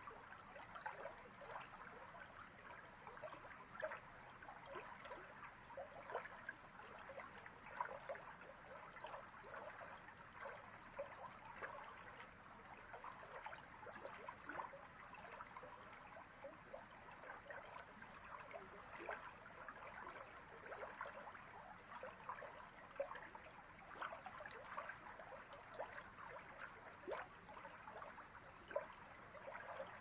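Shallow forest creek full of spring snowmelt, burbling over stones and pebbles, heard close up at water level. It is a faint, steady rush of running water, dotted all through with small quick bubbling plinks and splashes.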